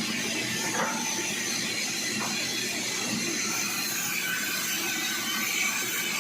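Sawmill machinery running steadily, with a couple of short knocks about one and two seconds in.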